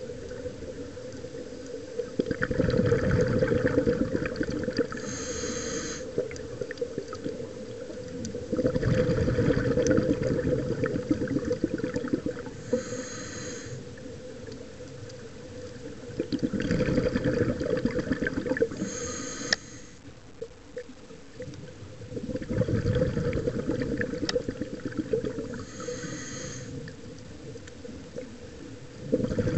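Scuba diver breathing through a regulator, heard underwater: four slow breath cycles, each a loud rush of exhaled bubbles ending in a short high hiss, with a steady low underwater drone between breaths.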